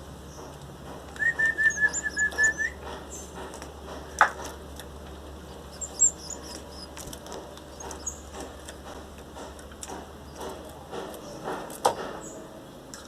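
Belgian canary chicks chirping with short, high cheeps while being hand-fed. About a second in there is a quick run of about ten even whistled notes, and a few sharp clicks fall later on.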